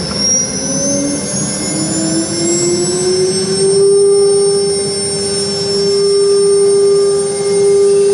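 Five electric spindle motors of a multi-head CNC router spinning up: a whine that rises in pitch for about four seconds, then holds steady at running speed.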